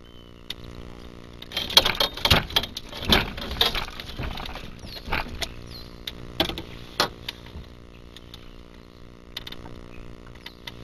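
Boat motor idling steadily under a cluster of sharp knocks, rattles and splashes from about a second and a half in to about seven seconds, as the netted catfish is handled.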